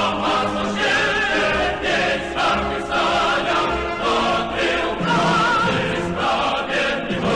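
Choral music: a choir singing long held notes, some with a wavering vibrato.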